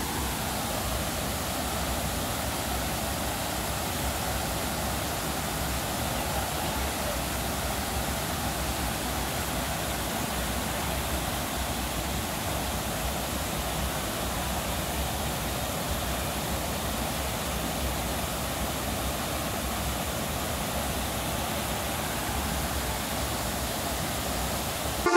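Water rushing steadily over a series of shallow limestone cascades of Erawan waterfall, a continuous even splashing with no change in level.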